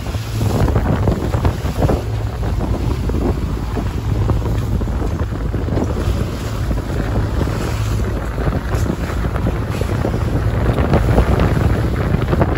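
Heavy wind buffeting the microphone on a moving boat, over a running outboard motor and the rush of its wake.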